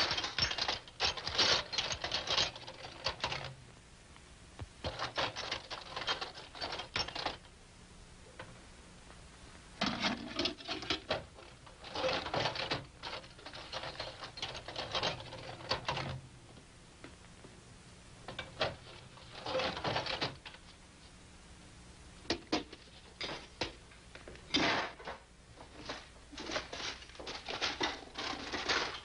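Metal tools and hardware clinking and clattering as hands rummage through a toolbox and a drawer of nails. The clatter comes in several bouts of rapid clicks with short quiet gaps between them.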